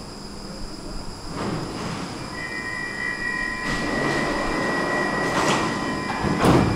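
Stockholm metro train standing at an underground platform, its machinery running. A steady high beep sounds for several seconds, and then the doors shut with a clatter and a loud thud near the end.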